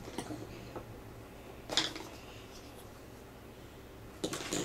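Plastic toy road-track pieces being handled and fitted together, with a few light clicks, a short rustle about two seconds in and a quick cluster of clicks near the end.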